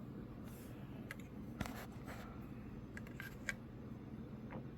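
Faint, scattered light clicks and taps of cartridges being handled and set into the holes of a multi-hole ammo checker case gauge.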